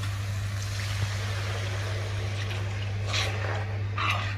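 Water poured into hot fried masala in a metal kadhai, hissing as it hits the pan, over a steady low hum: the roasted spices being thinned into gravy. A metal slotted spoon scrapes the pan a couple of times near the end.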